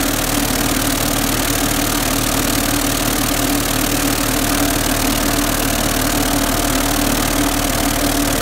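Vibratory tumbler running, its bowl of triangular ceramic deburring media and plasma-cut metal parts churning: a steady motor hum under a constant dense rattle of the media.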